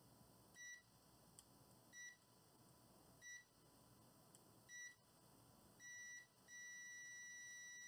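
Digital multimeter's continuity beeper: four short beeps about a second and a half apart as the probe makes brief contact with connector pins, then a longer beep, then a steady tone from about six and a half seconds in, the sign of a solid continuous connection between the probed pins.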